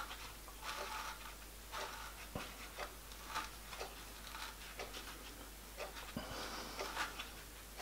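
Faint handling noises from a slit plastic-pipe lap being worked by hand: short, scattered scrapes and rustles, with a couple of small sharp clicks.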